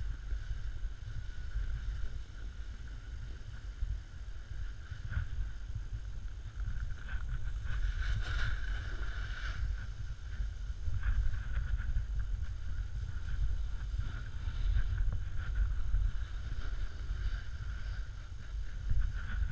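Snowboard sliding and carving down packed snow, heard through a pole-held action camera: a steady low wind rumble on the microphone with the board's scrape over the snow swelling and fading through the turns.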